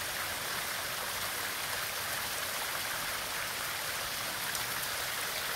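Hot spring water running and splashing down a rock face as a steady, even stream.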